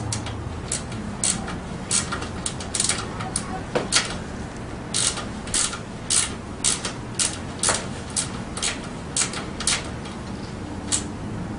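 Socket ratchet clicking in short, irregular strokes as the nut on a dirt bike's rear shock mounting bolt is snugged tight.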